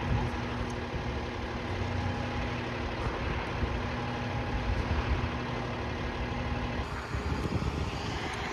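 An engine on a crane truck running steadily, with a low rumble and a steady hum, while the truck's boom holds a 50-foot flagpole in place.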